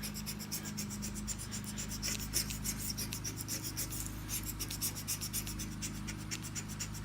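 Razor-blade sticker scraper scraping dried glue off the face of a salvaged car-speaker magnet in quick, repeated strokes, several a second, with a steady low hum underneath.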